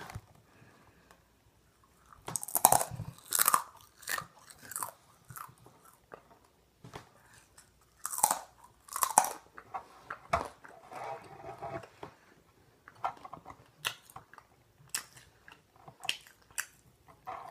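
Irregular crunching and rustling close to the microphone, in bunches of short crackly strokes with quiet gaps between them.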